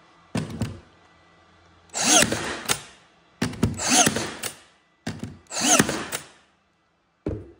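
Makita 18-gauge cordless brad nailer firing brads into a board, several shots about a second and a half apart. Each shot is a short motor whir with a sharp snap as the brad drives in, and there are a few lighter clicks between them.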